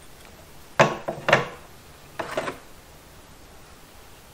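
Metal cup adapters of a ball joint press tool knocking against each other and the control arm as they are handled and fitted: two sharp clunks about a second in, then a few softer knocks a little after two seconds.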